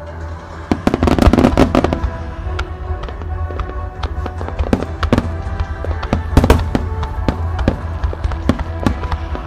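Aerial firework shells bursting in quick succession with sharp bangs, over music played on loudspeakers to accompany the show; a dense cluster of bangs about a second in and a single loud bang past the halfway point.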